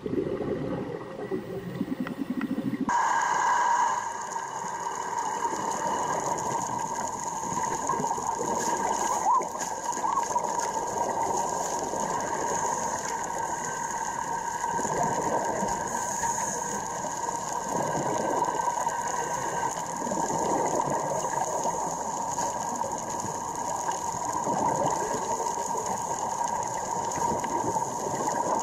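Underwater sound: a dense crackling with a steady high whine over it, which sets in sharply about three seconds in.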